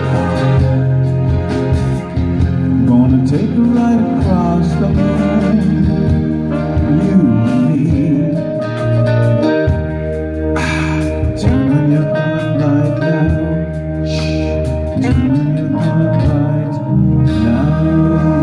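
Live band playing amplified rock music, with electric guitar prominent over drums, keyboard and horns.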